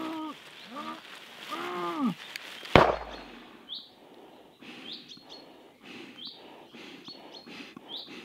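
Strained, drawn-out cries from a person struggling. About three seconds in comes a single sharp bang with a low rumble after it, the loudest sound. After that, birds chirp a few times over faint scuffs.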